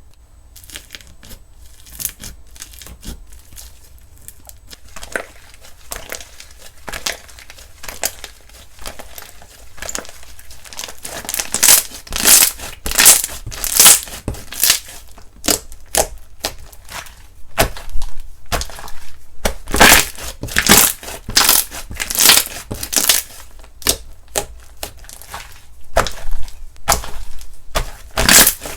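Slime being squeezed, stretched and poked by hand, giving a dense run of sticky clicks and crackling pops. It is fainter at first and turns louder and busier about eleven seconds in.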